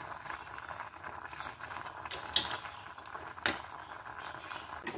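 Pot of curry laksa noodle soup bubbling at a steady boil, with a few sharp clicks over it.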